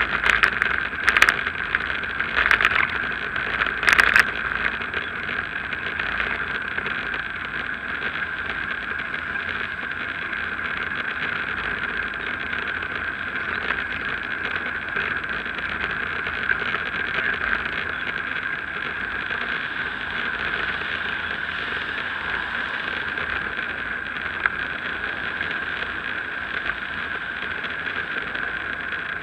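Steady rolling noise of a bicycle ridden along a cycle path, tyre and wind noise at an even level throughout. A few sharp knocks come in the first four seconds as it jolts over the rougher path surface.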